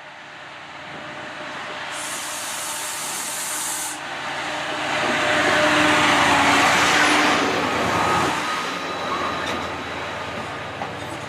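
Class 68 diesel-electric locomotive running at the platform, its engine drone steady under a sharp two-second burst of air hiss about two seconds in. The locomotive noise then swells to its loudest in the middle and eases off again.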